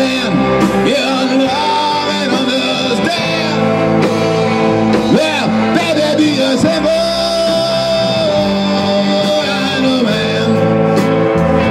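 A rock band playing live: two electric guitars, an electric bass and a Tama drum kit, with bending notes and a long held note over the beat around the middle.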